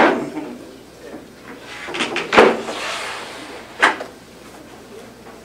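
A wooden MDF table saw sled being handled on the saw's cast-iron table: three sharp knocks about a second and a half apart as it is set down and shifted, with a brief scrape of it sliding after the loudest one.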